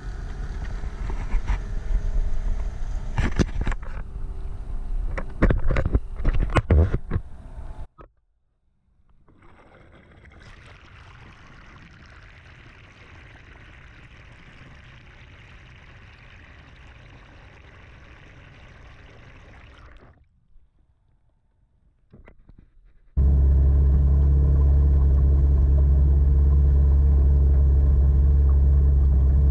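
Small outboard motor on an aluminium boat, running steadily under way with a loud, even low drone, which cuts in suddenly for the last several seconds. Before it, rough choppy noise with sharp knocks as the boat moves across the water, then a muffled steady hiss with the camera under water.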